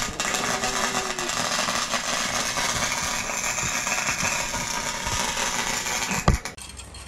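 Cheap Chicago Electric MIG welder's arc crackling steadily as a weld is run on steel tubing. It stops with a sharp click about six seconds in.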